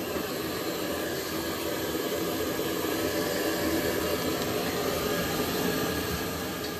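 Water rushing steadily through an air-over-media iron filter tank during backwash, the flow pushing the filter media up.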